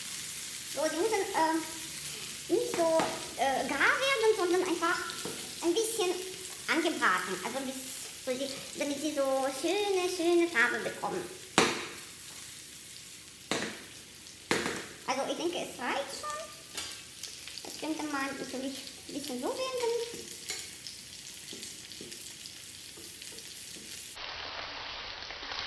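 Buckwheat-and-chicken balls frying and sizzling in oil in a nonstick pan as the pan is shaken and tossed to turn them, the balls rolling and scraping in it, with a few sharp knocks near the middle.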